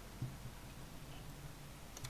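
Quiet room tone with a faint steady low hum and a single soft click about a quarter second in.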